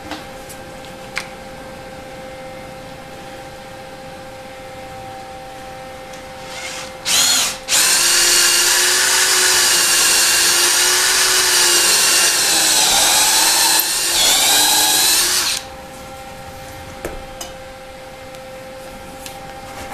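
Power drill running with its bit in a wooden block: a short blip about seven seconds in, then a steady motor whine for about eight seconds that wavers near the end and stops.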